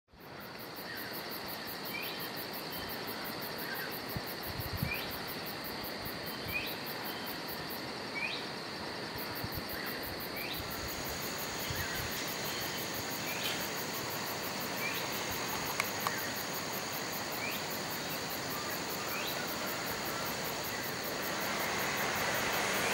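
Insects buzzing steadily in high, unbroken tones with a fast pulsing shimmer above them, and a short rising chirp repeating about every second and a half. Near the end a distant diesel railcar approaching makes the sound grow louder.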